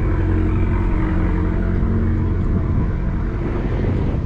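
Steady rumble of wind buffeting and road noise on the microphone of a camera on a moving bicycle, with a low hum underneath that fades out about halfway through.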